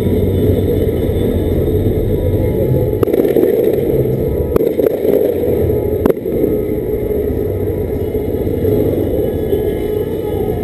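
A 250 cc motorcycle's engine running steadily at low speed, heard from the rider's position, with a few sharp clicks in the middle.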